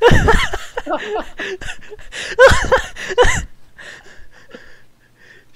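Excited wordless voices of young men, yelps and laughing exclamations heard through a voice-chat call, in two loud bursts: one at the start and another about two and a half seconds in. Faint scattered clicks follow.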